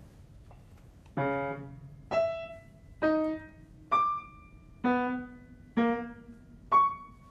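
Upright piano playing a sequence of seven single notes, one at a time, about one a second. The pitches jump up and down, and each note rings briefly before the next.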